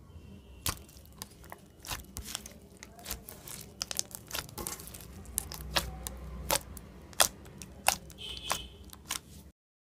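Clear slime studded with beads and glitter being pressed and kneaded by hand, making irregular sharp clicks and pops, about one or two a second. It stops abruptly near the end.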